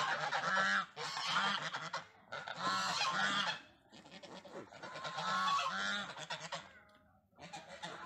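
Domestic geese honking: runs of repeated nasal calls in several bouts, broken by short pauses.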